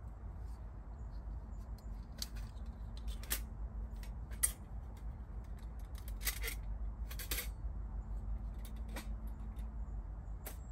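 Metal plates of a folding Bushbox pocket stove clicking and clinking as it is unfolded and snapped together, about half a dozen sharp metallic clicks. A steady low rumble runs underneath.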